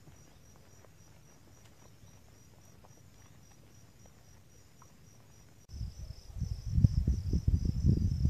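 Insects chirping in an even, pulsing trill over a quiet background. About six seconds in, a loud low rumbling on the microphone sets in and cuts off suddenly at the end.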